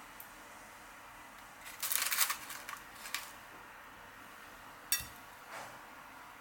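Kitchen handling noises: a short rustling scrape about two seconds in, then a few light clicks, the sharpest about five seconds in.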